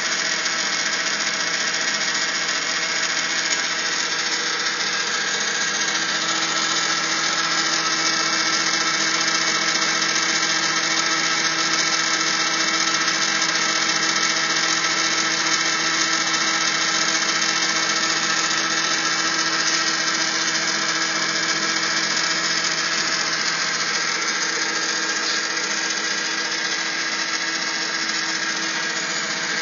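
Electric motor driving a bronze pump through a V-belt and pulleys, running at a steady speed with a constant hum and whine made of several held tones.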